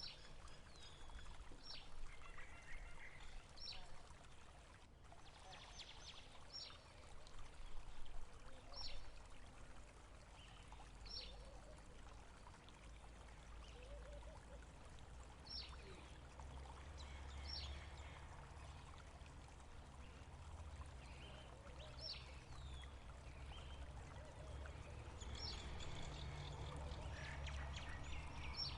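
A bird calling: short, high, falling notes repeated every couple of seconds, over a faint steady rush of running water or wind that grows slightly louder in the second half.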